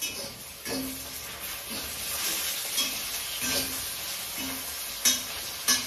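French fries deep-frying in hot oil in a metal pan on a gas stove: a steady sizzle, with a utensil stirring and scraping the pan in short strokes every second or so, the two loudest near the end.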